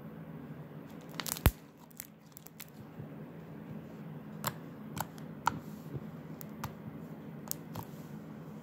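Souffle slime made with shaving cream being stretched until it tears, with a sharp snap about a second and a half in, then scattered small pops and clicks from the slime on the countertop.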